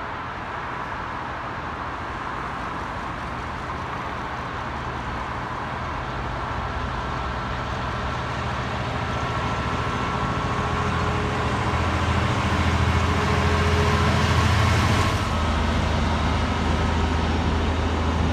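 Freightliner Class 66 diesel locomotive, with its two-stroke V12 engine, hauling a container train. The engine drone grows steadily louder as it approaches, is loudest about three-quarters of the way through as it passes close by, then eases slightly as the wagons roll past.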